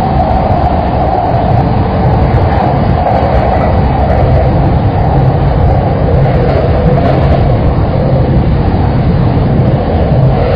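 Saikyo Line commuter rapid electric train running at speed: a steady rumble of wheels on rail and running gear.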